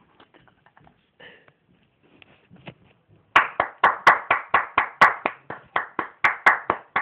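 Faint clicks and taps, then hands clapping in a steady run of about sixteen sharp claps, roughly four a second, starting about three seconds in.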